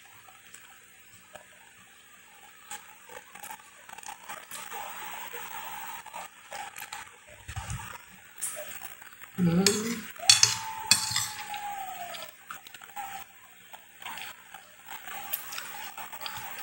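Close-up eating sounds: a metal spoon clinking and scraping on a glass plate, with chewing of boiled chicken and rice. About ten seconds in, a louder sound holds a drawn-out tone that slides down at the end.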